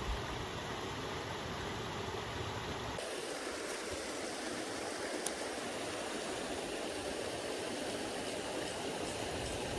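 Steady rushing noise, like running water, with a low rumble underneath that drops away about three seconds in.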